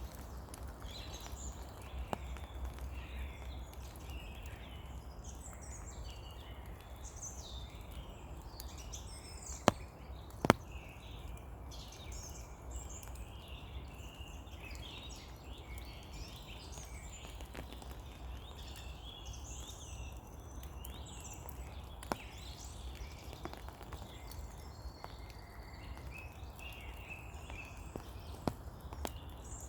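Steady rain pattering in a spring forest, with birds chirping and singing throughout. A few sharp taps stand out over it, the loudest two about ten seconds in.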